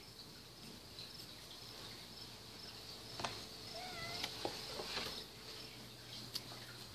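A cat gives one short, faint meow about four seconds in, over a steady high-pitched hiss, with a few light knocks from the camera being handled.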